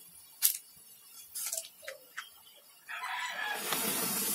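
Homemade sugar and potassium nitrate smoke grenade burning: a few sharp pops and crackles, then about three seconds in it flares up into a loud, steady hiss of escaping smoke.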